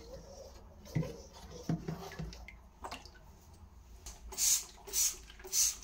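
Liquid cleaner being squirted from a plastic bottle in a bathroom: a few soft knocks, then three short hissing squirts about half a second apart near the end.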